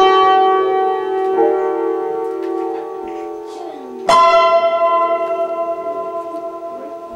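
Upright piano playing slow, held chords: one struck at the start, another about a second and a half in, and a loud one about four seconds in that rings on and slowly fades.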